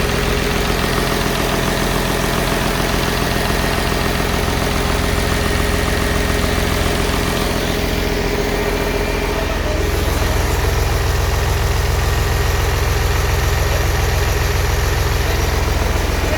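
Freshly rebuilt Mercedes-Benz OM366LA six-cylinder turbo-intercooled diesel idling steadily on a test stand with its valve cover off, the open valvetrain and injector lines exposed. The sound gets a little louder and fuller about ten seconds in.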